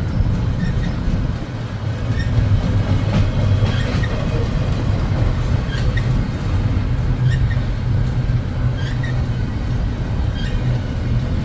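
Long freight train rolling past: a steady low rumble of the cars, with the wheels clicking over the rail joints about once every second or so.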